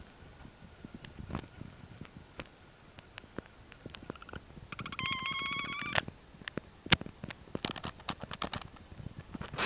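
Scattered sharp clicks and ticks throughout. About five seconds in comes a high, rapidly pulsed trill that holds one pitch for just over a second and then cuts off.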